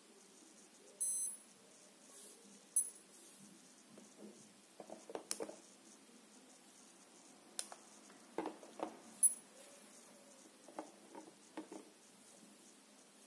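Light plastic clicks and knocks as a small UV curing lamp is handled, lifted off the phone and set back down over it, in three loose clusters. A brief high-pitched beep about a second in is the loudest sound.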